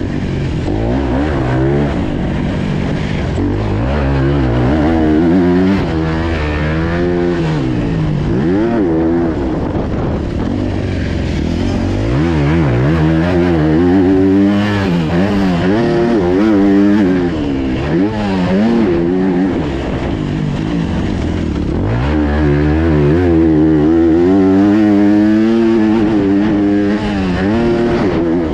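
Motocross dirt bike engine heard up close from the bike during a lap, revving up and dropping again and again as the rider opens and closes the throttle and shifts gears.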